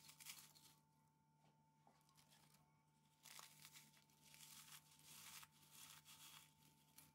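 Very faint crunching of petit-beurre biscuits being broken up by hand, in several short bursts.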